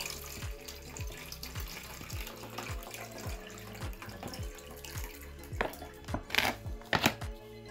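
Water pouring in a stream from a soft water bag into a titanium cup, filling it. Near the end come a few sharp knocks, the loudest sounds here.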